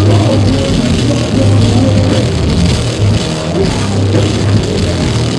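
Metal band playing live: electric guitar, bass and drums in one dense, continuous wall of sound with strong bass, poorly recorded.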